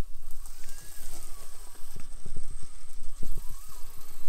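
Micro RC rock crawler driving over a rocky course: a scatter of small clicks and knocks from its tyres and chassis on the rocks, with a faint electric motor whine that rises and falls as the throttle is worked.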